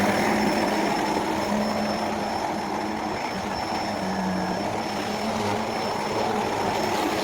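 Electrolux Precision vacuum cleaner running steadily, a continuous motor drone with a faint high whine over it.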